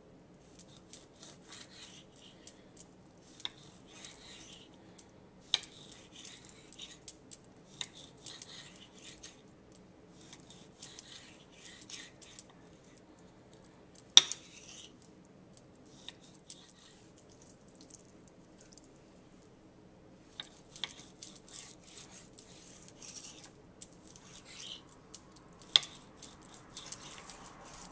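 Kitchen knife slicing raw steak into strips in short sawing strokes, with the blade now and then clicking sharply against the hard countertop beneath the meat.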